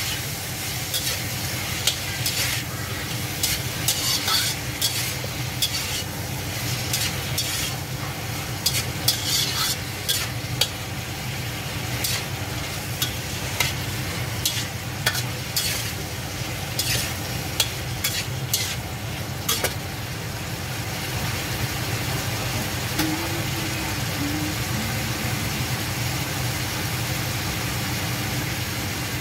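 Shrimp and tomato pieces sizzling in a hot pan while a slotted spatula stirs and scrapes them against the pan. The scrapes and clicks stop about two-thirds of the way through, leaving a steady sizzle over a low hum.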